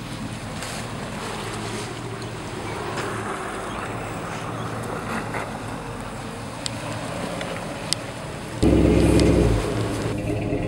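Jeep Grand Cherokee WJ's 4.7-litre V8 running under load as it crawls through deep mud ruts, a steady engine drone with a few sharp clicks. About eight and a half seconds in, a sudden, much louder low rumble takes over.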